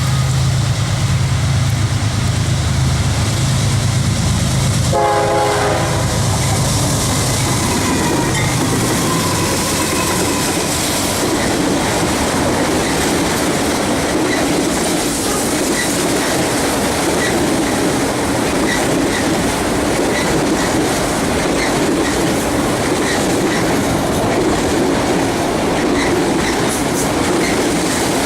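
Fast CSX freight train of autorack cars passing: the diesel locomotive's low drone with a brief horn-like tone falling in pitch about five seconds in as it goes by, then a steady rumble of the cars rolling past with regular clicks of wheels over rail joints.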